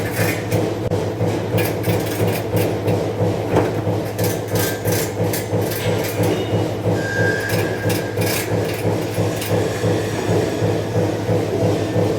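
Steady electrical machine hum in a metal workshop, pulsing about twice a second, with scattered short metallic clicks and scrapes.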